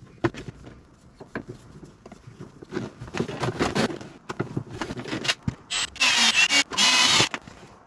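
Cordless drill running in two short bursts against the dashboard top, with a wavering whine over loud grinding noise, after a few seconds of scraping and tool-handling sounds on the dash panel.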